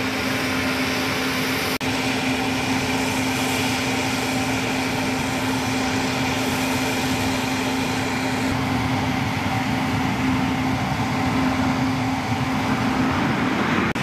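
US Navy LCAC hovercraft's gas turbine engines and fans running steadily: a loud, even rush with a constant whine. The sound drops out very briefly about two seconds in.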